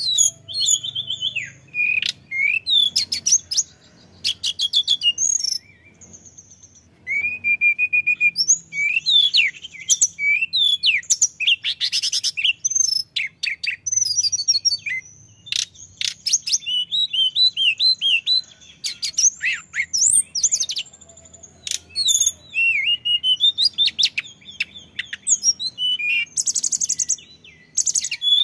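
Male hill blue flycatcher singing a long, varied song of whistled notes, rapid trills and twittering phrases, continuous apart from a few brief pauses.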